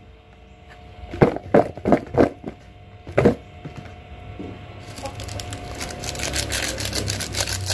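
A few sharp knocks as boiled cassava pieces are tossed in a plastic bowl to mix in seasoning. From about five seconds in, a dense crinkling crackle from a foil seasoning sachet being shaken over them, growing louder.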